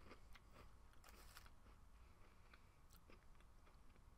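Faint chewing of a crumbly Honey Stinger vanilla waffle, with soft, irregular crunches and crackles, a short cluster of them about a second in.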